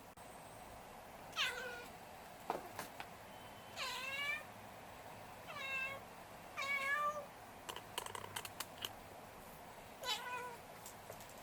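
Cat chattering at a fly: about five short chirping calls spread through the few seconds, with bursts of quick clicking between them.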